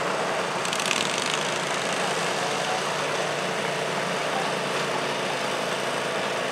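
Engines of a garden tractor and the pulling sled's farm tractor running steadily at low speed, with a brief hiss about a second in.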